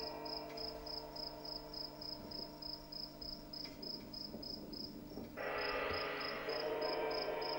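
Performance soundtrack: sustained low music tones under a high chirping pulse repeating about four times a second, with a steady hum beneath. About five seconds in, the music swells louder and fuller.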